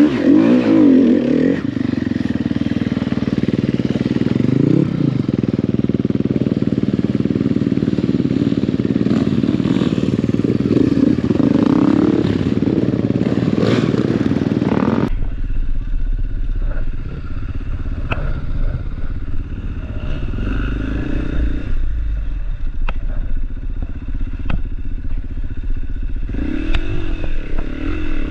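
Enduro dirt bike engine running under load and revving up and down as it is ridden off-road. About halfway through, the sound changes suddenly: the engine drops back under a heavy low rumble, with scattered knocks and clatter. Near the end the engine revs rise again.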